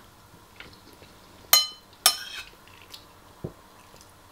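Metal spoon clinking against a ceramic bowl while scooping food: two sharp, ringing clinks about half a second apart, near the middle, with a few faint taps around them.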